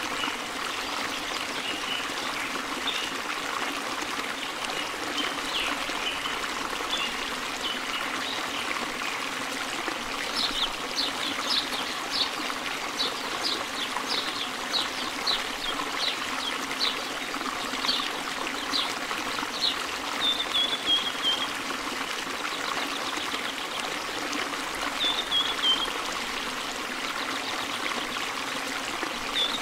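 Steady trickling, running-water sound like a stream. Quick high chirps repeat about twice a second through the middle, and a few short falling chirps come near the end.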